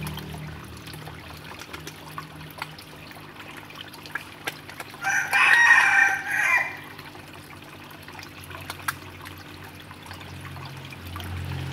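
A rooster crows once about five seconds in, a single call of about a second and a half and the loudest thing heard. Around it are small splashes and slurps of koi and goldfish feeding at the water's surface, over a low steady hum.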